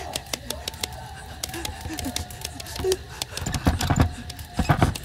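Handling noise on a phone's microphone: scattered crackling clicks, with two heavier rubbing thumps about three and a half and four and a half seconds in.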